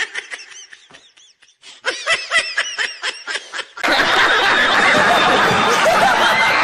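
A man laughing in quick snickering bursts, with a lull in the middle. About four seconds in it gives way to a studio audience laughing loudly and clapping.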